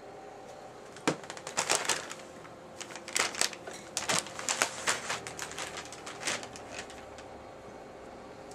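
Plastic bag crinkling and rustling in irregular sharp crackles as cats play in and around it.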